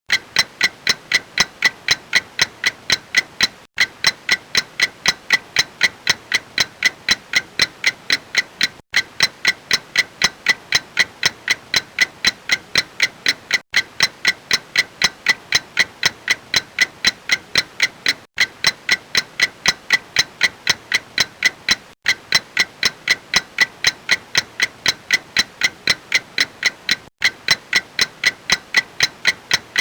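Clock ticking: a fast, even run of sharp ticks, about three to four a second, with a brief gap every four to five seconds.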